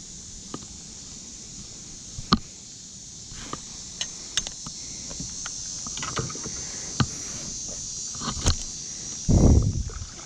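Kayak paddling: a dozen scattered sharp knocks and clicks of the paddle against the kayak, over a steady high hiss. Near the end comes the loudest sound, about a second of low rumbling handling noise as the hand on the paddle shaft comes up against the bow-mounted camera.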